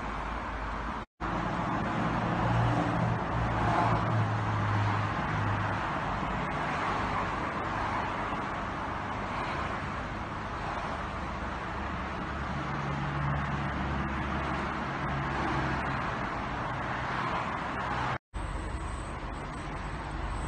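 Steady outdoor road-traffic noise, with the low hum of passing vehicles swelling twice. Two brief dropouts break it where the recording cuts.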